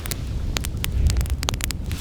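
Wood fire crackling in a Coleman Fire Disc fire pit: many sharp, irregular pops and snaps over a low, steady rumble of wind on the microphone.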